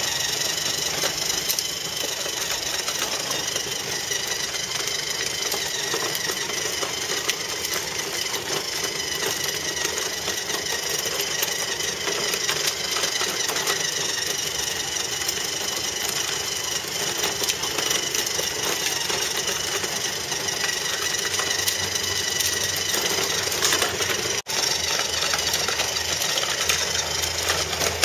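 Motor and gearbox of a ride-on toy taxi car whining and rattling steadily as it drives along concrete. The sound cuts out for an instant near the end.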